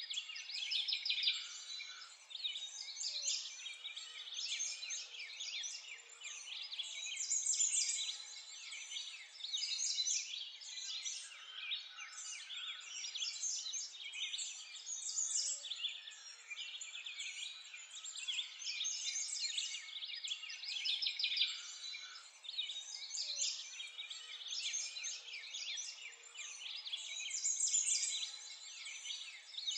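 A dense chorus of many small birds chirping and twittering without a break, thin-sounding with no low end.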